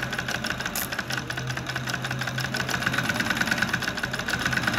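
Consew 289RB-2 post-bed walking-foot lockstitch industrial sewing machine stitching through muslin at a steady run: rapid, even needle strokes over the hum of the motor, growing a little louder toward the end.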